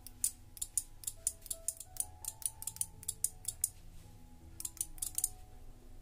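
2-channel relay module clicking rapidly, several sharp clicks a second, as its relays switch on and off in answer to button presses on the wireless remote. There is a short pause about four seconds in. Soft background music plays underneath.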